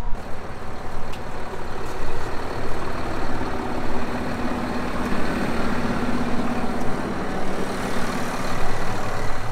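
Massey Ferguson Dyna-6 tractor's diesel engine running steadily close by, a little louder midway through.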